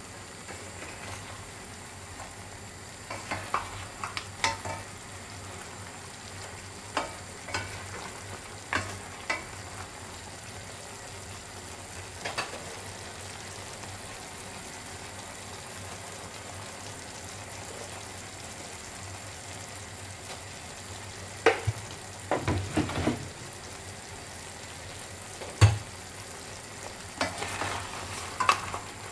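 Pork ribs in a soy-based sauce bubbling and sizzling steadily in a stainless steel pot. Now and then a utensil knocks and scrapes against the pot, with a cluster of clatters a little past two-thirds of the way in and one sharp knock shortly after.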